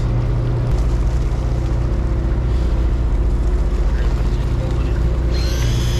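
Steady low hum of the boat's engine idling while drifting. About five seconds in, a high-pitched electric motor whine starts up: an electric deep-drop reel winding line.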